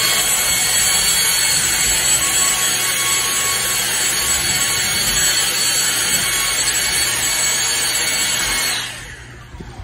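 Cordless stick vacuum cleaner running: a steady rushing hiss with a high motor whine, cutting off about nine seconds in.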